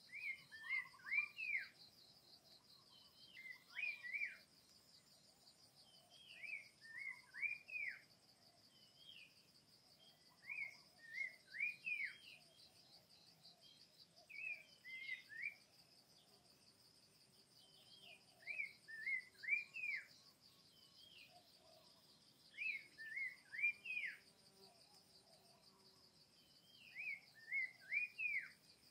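A songbird repeating a short phrase of three or four quick rising-and-falling whistled notes about every four seconds, over a steady high insect trill.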